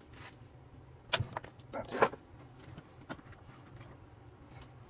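Metal parts and tools clinking and clicking as they are handled, a few sharp strikes with the loudest about two seconds in, over a steady low hum.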